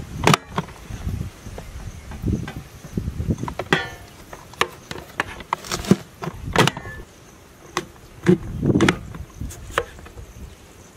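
Plastic push-down vegetable chopper being pressed shut, forcing potato pieces through its blade grid: irregular sharp clacks and knocks with some duller thuds.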